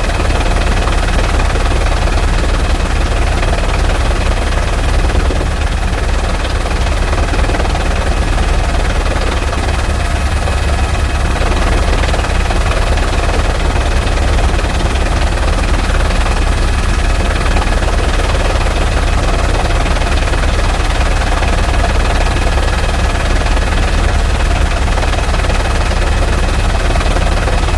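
A steady, loud low mechanical drone with a faint high whine, unchanging throughout.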